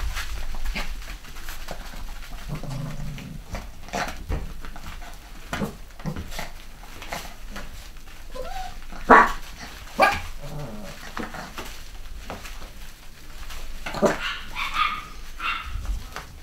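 Cavachon (Cavalier King Charles spaniel × bichon frise) puppies playing, giving short high barks and yaps among small scuffling knocks. The two loudest barks come about a second apart, some nine seconds in.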